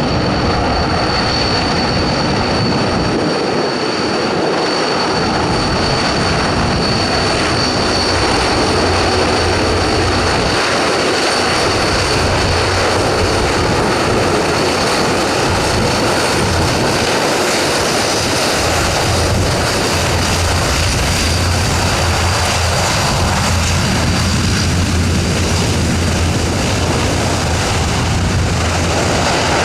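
Antonov An-12B's four Ivchenko AI-20 turboprop engines running steadily, with a constant high whine over the propeller noise and a low hum that sets in about ten seconds in.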